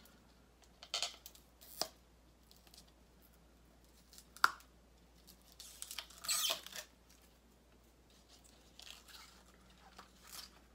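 Ribbon being handled and unwound from its spool: a few short rustles and peeling sounds, with one sharp click about four seconds in and a longer rustle a couple of seconds later.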